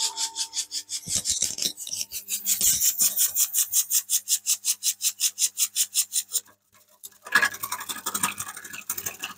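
Model oscillating-cylinder steam engine running fast, its exhaust puffing at about ten beats a second. It stops briefly about two-thirds of the way through, then runs again less evenly.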